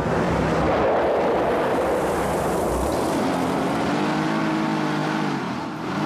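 Truck engine running hard, starting suddenly, its pitch climbing slowly in the second half and dipping briefly near the end.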